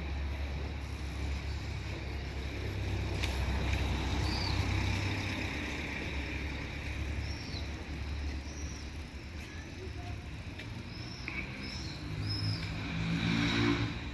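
Steady low rumble, with a handful of short, high chirps scattered through it and a low swell near the end.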